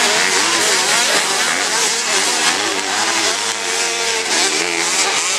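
Several racing ATV quad engines revving on a dirt motocross track. Their pitches rise and fall over one another as the riders work the throttle through turns and jumps.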